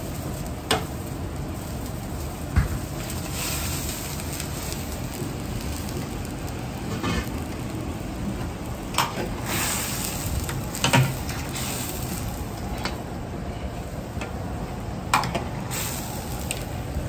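Steady roar of a wok burner in a commercial kitchen, with a few short bursts of sizzling and about five sharp knocks scattered through.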